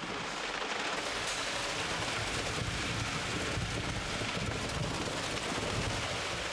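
Concrete pouring from a skip down into a bored pile's casing, a steady rain-like rush.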